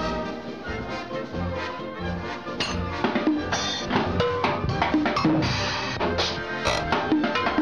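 Cartoon music score with drums and percussion hits. The drum strokes come thicker from about three seconds in.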